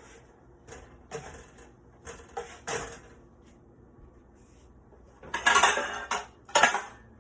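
Knife cutting strawberries on a cutting board: a few light knocks, then a louder clatter of kitchenware about five seconds in.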